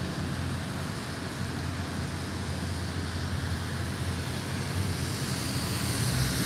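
Steady city traffic: cars and red double-decker buses driving through a junction on a wet road, a low engine rumble under tyre noise. It grows a little louder near the end as a bus comes close.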